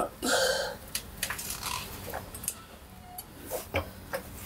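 Hydraulic floor jack being pumped to lift a Subaru R180 rear differential up into the subframe: scattered light clicks and knocks, with a short strained breath near the start.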